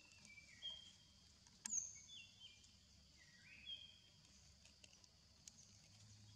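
Faint forest ambience: short, falling whistled bird calls repeating every second or so over a steady high hiss, with one sharp click and a high chirp a little under two seconds in.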